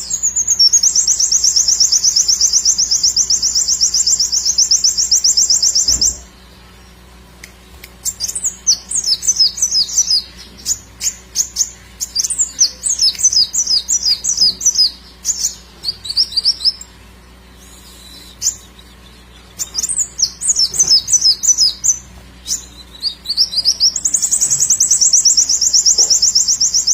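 Kowul songbird singing loudly: long, very fast high trills of about five seconds near the start and again near the end, and between them runs of quick, high, sliding notes broken by short pauses.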